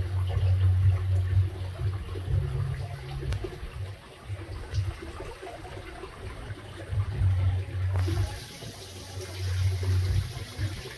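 Small garden-pond waterfall splashing steadily into the pond, with low rumbles that come and go every second or two.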